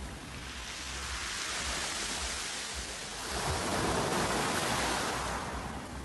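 Small sea waves washing up over a pebble beach and drawing back: a steady hiss of surf that swells twice, once about a second in and again just past the middle.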